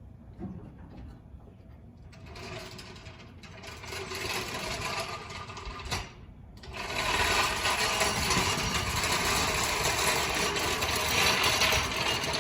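Rapid, steady mechanical chatter from machinery, building from about two seconds in and growing loud from about seven seconds in after a brief dip.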